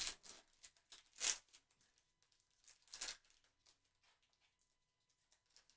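Foil wrapper of a football trading-card pack crinkling and tearing as it is opened and the cards are pulled out, in four short bursts over about three seconds, the loudest about a second in.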